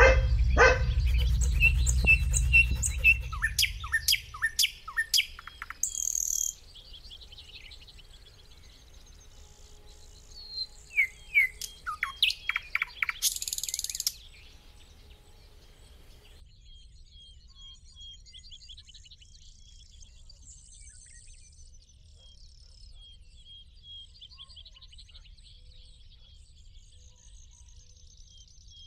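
Small birds chirping in short, downward-sweeping calls, in two bouts, with the louder one about ten to fourteen seconds in; after that only faint, quick repeated chirps go on. A low rumble fades out over the first few seconds.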